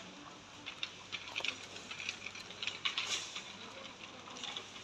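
Faint background noise of a large shop, with scattered light clicks and taps throughout.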